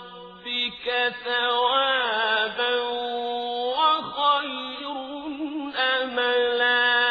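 A male Quran reciter chanting in the melodic tajwid style, one voice holding long drawn-out notes with wavering ornaments and short breaks for breath.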